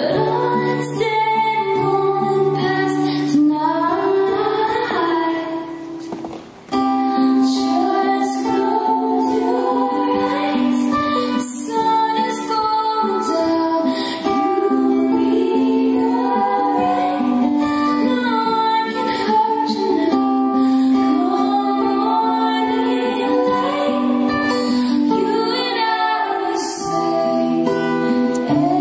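Live acoustic performance: female voices singing a slow song over an acoustic guitar, with a short break in the sound about six seconds in.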